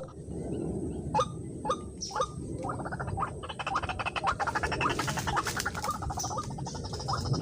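White-breasted waterhen calling: a few separate falling notes, then a long fast run of rapid repeated notes.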